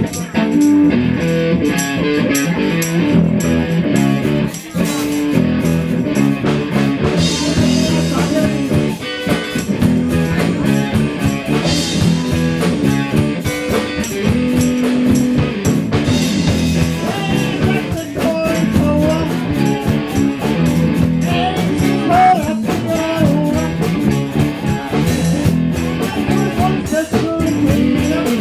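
Live band playing a blues-rock number: electric guitar over a drum kit, with bent guitar notes in the later part.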